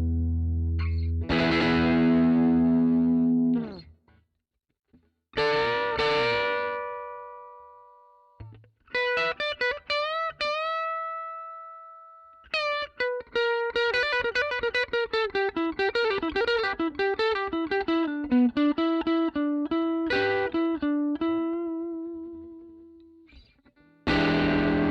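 Electric guitar played through the Zoom G2X Four's Fender Bassman amp model with the gain turned up to 80–100. Held chords, a brief pause, a chord left to ring and fade, a few ringing single notes, then a long run of quick single notes ending on a held note that fades before a new chord starts near the end.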